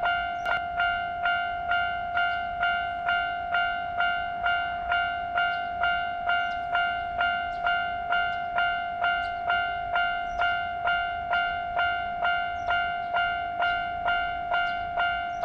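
Railroad level-crossing warning bell ringing steadily, struck a little under twice a second, each stroke ringing on into the next.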